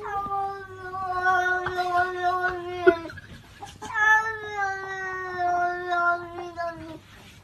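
Domestic cat giving two long, drawn-out yowls, each about three seconds long, held at a steady pitch that sags slightly toward the end of each.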